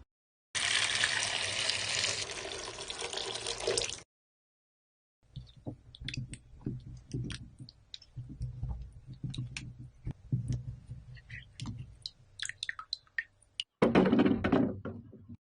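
Water running steadily, as from a tap, then after a short silence a long stretch of scattered small clicks and soft knocks as green plums are handled, followed near the end by another short burst of running water.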